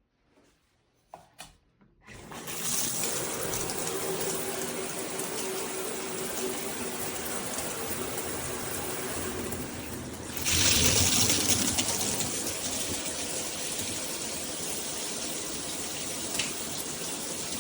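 Water spraying from a shower head: a couple of faint knocks, then the water comes on about two seconds in as a steady spray, getting louder and hissier about ten seconds in.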